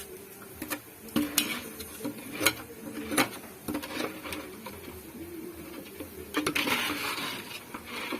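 Metal cookware and utensils clinking and knocking, a handful of sharp separate strikes, with a brief hiss or rustle about six and a half seconds in.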